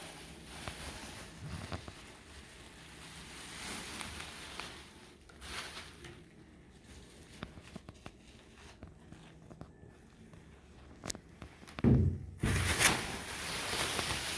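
Faint rustling and scattered clicks, then a louder thump about twelve seconds in, followed by a rush of rustling noise.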